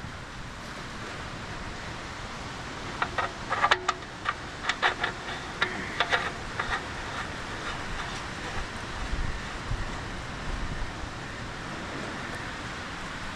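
Steady rush of wind and rain, with a run of light clinks and taps from about three to seven seconds in.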